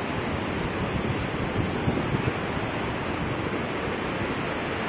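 Steady rushing of the Teesta river through the gorge below a high suspension bridge, a continuous even roar of water.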